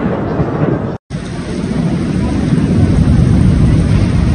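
Heavy rain in strong wind, a steady loud roar with the wind rumbling on the microphone. The sound breaks off for an instant about a second in, then comes back just as loud.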